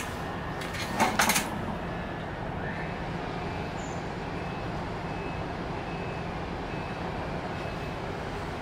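Steady background rumble of traffic, with a quick cluster of sharp knocks about a second in.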